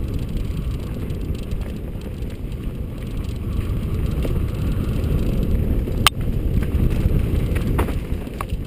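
Mountain bike descending a dirt singletrack: tyre and frame rumble and rattle mixed with wind buffeting the camera microphone, and one sharp knock about six seconds in.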